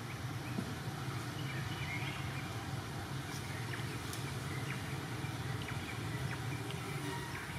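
A steady low hum, with faint short high chirps scattered over it.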